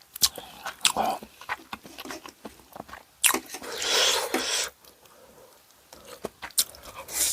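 Close-miked eating sounds from a meal of ramen and fried chicken: short clicks and bites throughout, with a louder noisy stretch of about a second and a half just past the middle.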